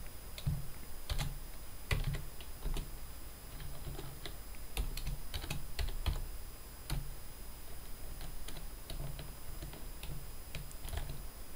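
Typing on a computer keyboard: a run of short, irregularly spaced keystroke clicks as a line of text is typed.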